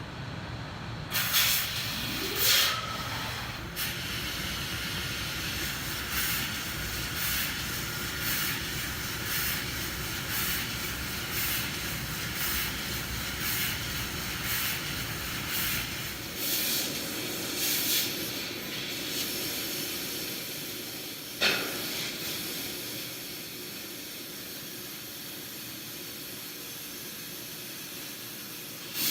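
Laser cutter cutting stainless steel sheet: a steady hiss of assist gas with short bursts about twice a second as the head cuts each slot of the pattern. Near the end the bursts stop and only a quieter steady hiss remains.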